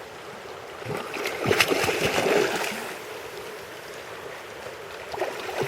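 River water running, with a burst of splashing from about one to three seconds in: a hooked chum salmon thrashing at the surface as it is dragged toward shore.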